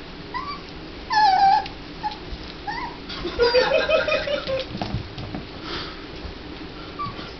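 Puppy whimpering in short, high whines that bend up and down, one loud whine about a second in, then a longer, louder run of whining cries from about three to five seconds in.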